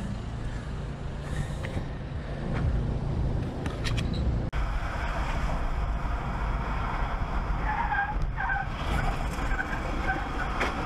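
Outdoor traffic noise with wind rumble on the microphone, then an abrupt cut about four and a half seconds in to the inside of a car on a wet highway: steady tyre hiss from the wet road under the engine and road drone, with a few short squeaks near the end.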